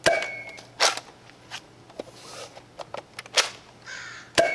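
A Nerf Mega XL blaster fired several times: sharp pops and clacks, four loud strikes over a few seconds with lighter clicks between.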